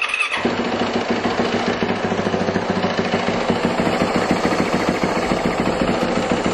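A 450 four-stroke dirt bike engine catches just after the start and then idles steadily with a fast, even beat. It is running on a freshly fitted spark plug and sounds way better.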